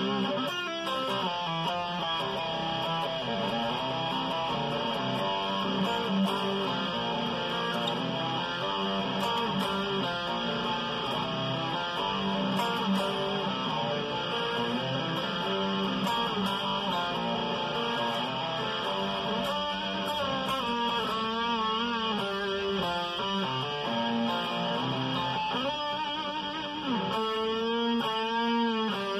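Solid-body electric guitar playing a simple picked riff over and over. Some held notes waver with vibrato about two-thirds of the way through and again near the end.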